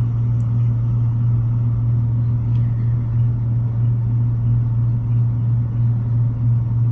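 A steady low hum with a rumble beneath it, unchanging throughout.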